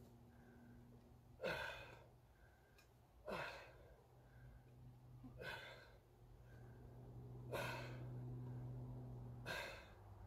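Sharp, forceful exhales from a person swinging a sledgehammer around the body in a circle, five times, about two seconds apart, one breath per swing. A faint steady low hum runs beneath.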